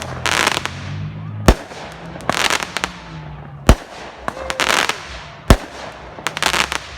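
Fireworks going off: three sharp bangs about two seconds apart, with bursts of crackling between them.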